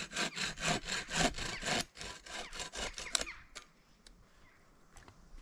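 Hand saw cutting through wood in quick back-and-forth strokes, about four a second, that stop about three seconds in.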